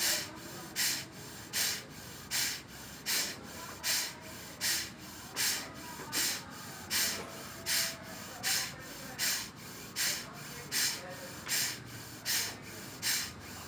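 Forceful exhalations through one nostril, the other held shut, in bhastrika pranayama (bellows breathing): short hissing nasal blasts repeated evenly, about four every three seconds.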